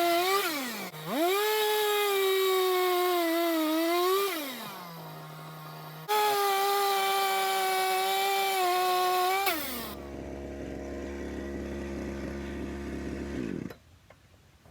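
Gas chainsaw at full throttle cutting through firewood logs, its pitch sagging and recovering under load. It drops to idle twice between cuts, then idles for a few seconds and cuts off near the end.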